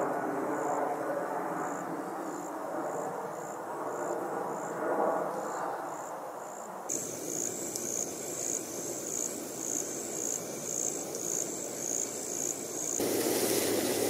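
An insect, cricket or katydid, chirping high-pitched in a steady rhythm of about two chirps a second, louder from about seven seconds in, over a low, steady hum of distant traffic.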